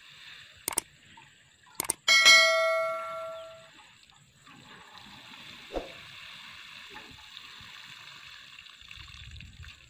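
Two clicks and then a bright notification-bell ding that rings out for about a second and a half, the sound effect of a subscribe-button animation. After it, a steady soft hiss of water sprinkling from a metal watering can's rose onto dry soil.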